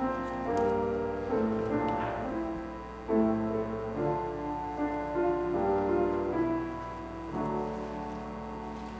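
Piano playing a slow, quiet hymn tune in held chords, easing off near the end.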